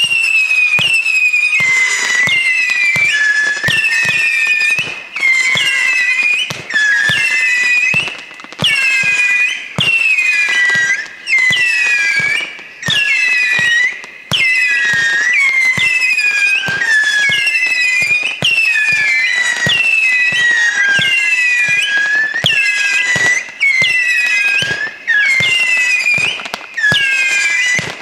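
Whistling firework barrage (a 64-shot cake) firing shot after shot in quick succession. Each launch pop is followed by a shrill whistle, and the three-tone whistles overlap in several pitches, each dipping as it starts and then holding.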